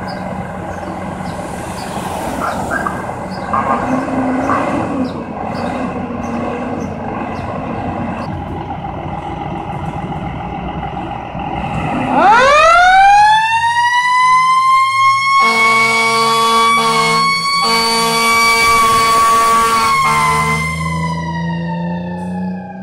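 Fire apparatus diesel engines idling, then about halfway through a mechanical siren winds up to a steady wail. Air horn blasts join it for several seconds, and near the end the siren begins to wind down.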